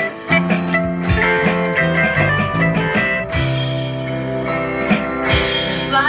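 A band playing an instrumental passage: sustained guitar notes over a bass line and drum kit.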